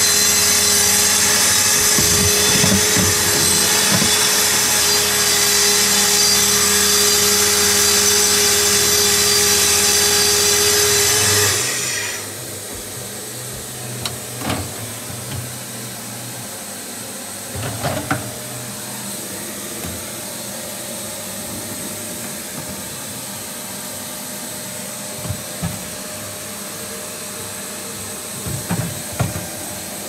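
A loud machine whir with a steady hum cuts off suddenly about eleven seconds in. After that a quieter steady hum remains, broken by a few light knocks and clatters of plastic freezer drawers being handled.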